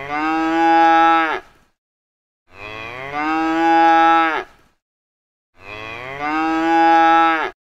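A cow mooing three times. The moos are long and identical, each about two seconds, with gaps of about a second between them.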